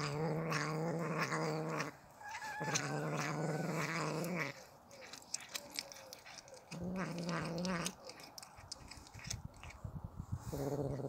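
Domestic cat growling over a piece of meat it is eating: four long, low, steady growls, one with a higher wavering yowl on top, with soft chewing clicks in between.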